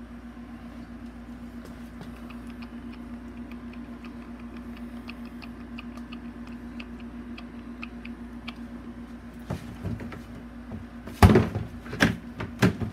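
A steady low hum with faint scattered ticks, then near the end a run of loud plastic clunks and clacks from a swing-lid plastic trash can being handled.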